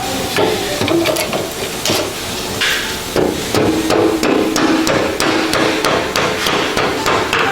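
A hammer striking metal again and again, blows coming at an uneven pace with some ringing between them.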